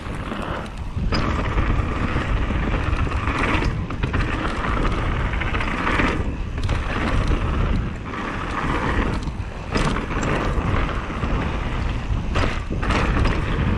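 Mountain bike riding down a dirt trail: wind rushing over the camera microphone with a heavy low rumble, mixed with tyre and frame noise over rough ground, rising and falling as the bike speeds up and slows.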